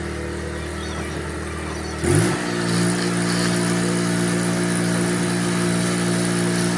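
Engine-driven welder on a welding rig running at a low idle, then speeding up about two seconds in and holding a higher steady speed as it comes up to welding speed.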